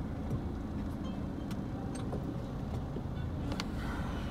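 A car in motion: steady low engine and road rumble, with a few faint clicks.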